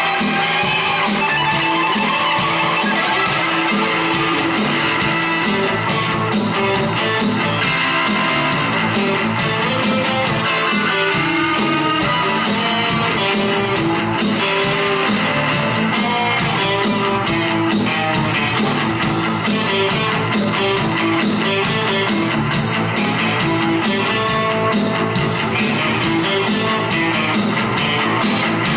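Two electric guitars, a Squier and a Rickenbacker, jamming a hard rock instrumental in A through distortion over the steady beat of an Alesis SR-18 drum machine.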